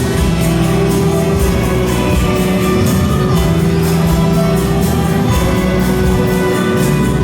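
A massed orchestra playing a piece of music with long held chords and a steady beat.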